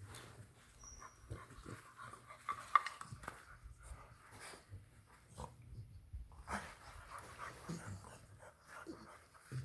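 English bulldog puppies panting while gnawing on chew bones, with irregular small clicks and knocks.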